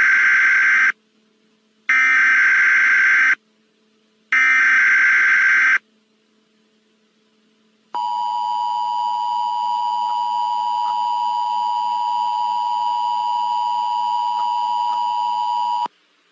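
Emergency Alert System header: three bursts of SAME data tones, each about a second and a half, with short gaps between them. After a pause of about two seconds comes the two-tone EAS attention signal, held steady for about eight seconds before it cuts off. Together they mark the start of a new alert.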